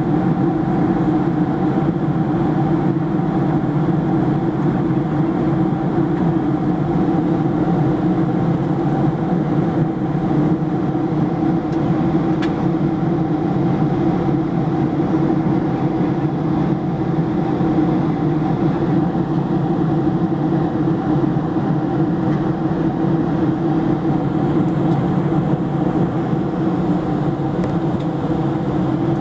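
Steady cabin noise of a Boeing 737-700 in flight, heard from a window seat over the wing: the drone of its CFM56-7B turbofan engines mixed with rushing airflow, even and unchanging.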